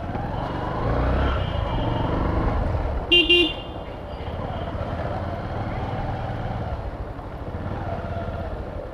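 Traffic in a jam: motorcycle and car engines running, with a vehicle horn honking once, short and loud, about three seconds in.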